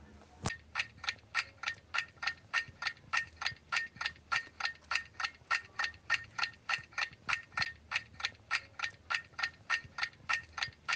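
Clock-ticking countdown sound effect: short, even ticks at about four a second, marking the time left to answer.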